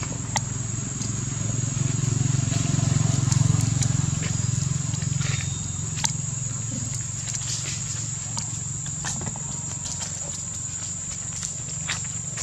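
Outdoor ambience with a steady high-pitched whine and a low rumble that swells a couple of seconds in and fades back, with scattered light clicks and rustles from monkeys moving over dry leaves.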